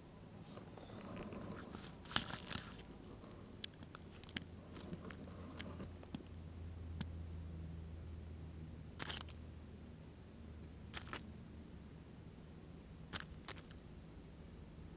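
Sparse light clicks and small crunches from a fledgling American robin shifting and stepping on gravel close to the microphone, over a faint steady low hum.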